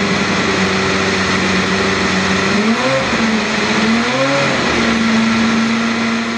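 Honda HSV-010 GT race car's V8 idling steadily. It is blipped twice near the middle, each time the revs briefly rising and falling back to idle.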